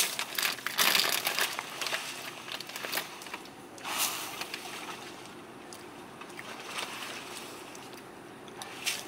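Crinkling and crackling close to the microphone, densest in the first three seconds with another burst about four seconds in, then a fainter hiss.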